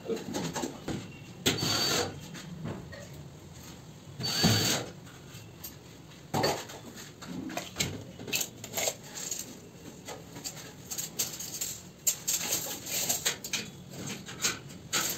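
Tool and handling noise from PVC ceiling panel fitting overhead: irregular knocks and clicks, two short louder bursts about one and a half and four and a half seconds in, and a quick run of clicks near the end.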